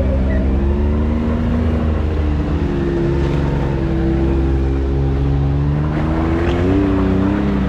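Can-Am X3 side-by-side's engine running steadily, its pitch rising and falling slightly as the machine creeps along the trail.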